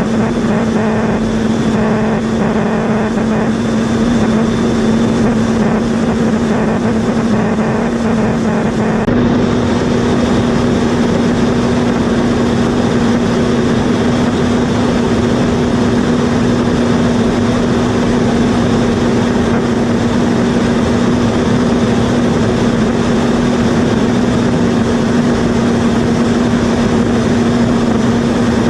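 Aircraft engine running with a steady, loud drone and a constant low hum, unchanging apart from a slight shift about nine seconds in.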